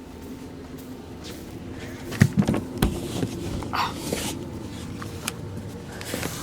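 Lennox gas furnace's blower fan running steadily at low speed in heat mode, a continuous hum. A few sharp knocks and clatter come about two seconds in.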